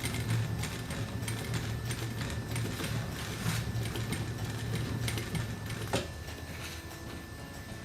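Sewing machine stitching a seat cover, its motor humming under the ticking of the needle, then stopping with a sharp click about six seconds in.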